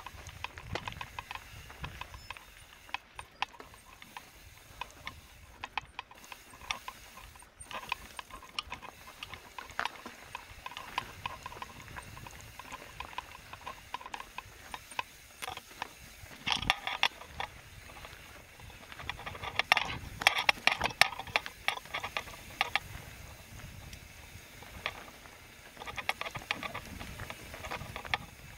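Mountain bike rolling over rough trail: the rear hub's freehub pawls ticking rapidly while coasting, with chain and frame rattling, louder in a few spells partway through and near the end.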